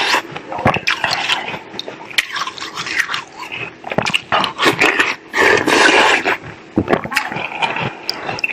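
A chunk of ice being bitten and crunched close to the microphone: a dense run of crisp cracks and crunches mixed with wet chewing.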